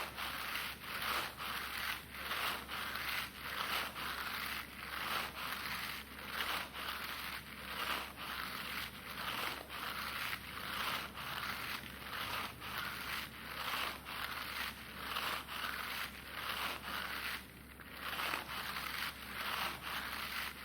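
Breathing in and out into a thin polythene bag held over the mouth and nose like a mask; the plastic rustles with each breath, about two pulses a second, with a brief pause near the end.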